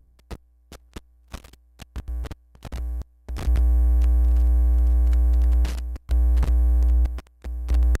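Glitchy electronic outro sound: scattered sharp clicks and short crackles, then from about three seconds in a loud, deep synthesizer drone with several steady tones above it, cutting out and back in several times near the end.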